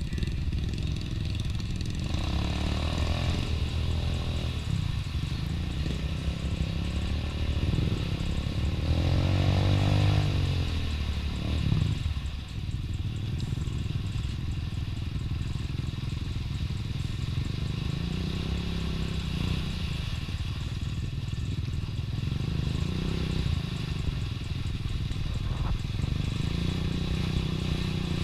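ATV engine revving up and down again and again as it churns slowly through a deep mud hole, with the loudest, highest rev about ten seconds in.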